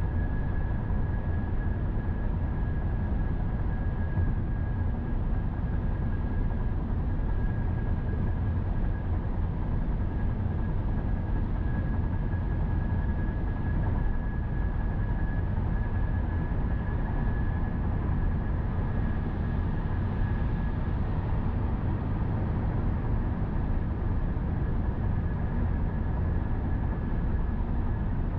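Steady road noise of a car driving at highway speed: a constant low rumble of tyres and engine, with a faint steady high whine over it.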